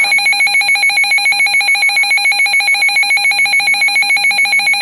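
Loud electronic alarm tone pulsing rapidly and evenly, about seven pulses a second, steady in pitch. It is the alert signal at the head of an emergency weather warning.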